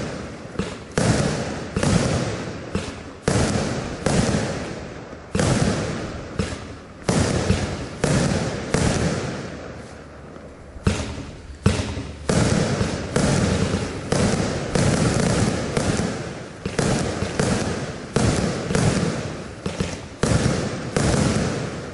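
A consumer compound firework battery of 20 and 25 mm shots firing shot after shot: sharp bangs about once a second, each fading away, with a short lull about ten seconds in.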